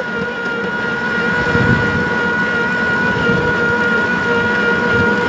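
Motorbike running at a steady speed: an unchanging engine whine over rough road and wind noise.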